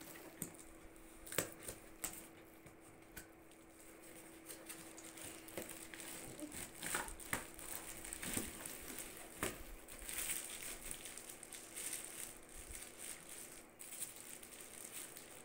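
Cardboard box and its packing being knocked and handled, with sharp clicks in the first seconds, then plastic wrapping crinkling steadily from about six seconds in as a wrapped bag sealing machine is pulled out and handled.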